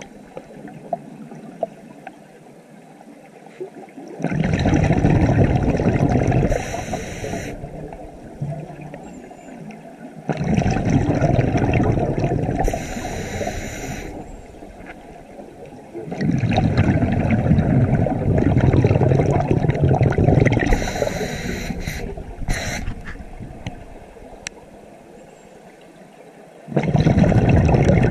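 Scuba diver breathing through a regulator underwater: four long bursts of exhaled bubbles rushing and gurgling past the camera, with quieter pauses between them while the diver inhales.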